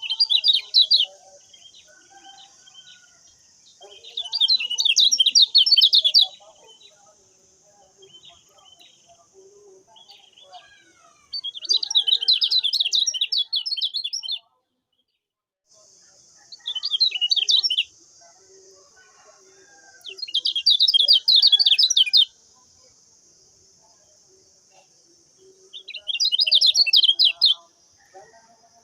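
Kecial kuning (lemon-bellied white-eye) song: six bouts of rapid, high chattering notes, each a second or two long, over a steady high hiss. Everything cuts out for about a second midway.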